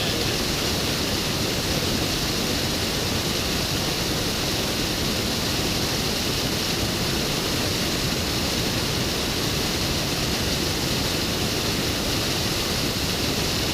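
Steady, unbroken rush of water pouring over a waterfall.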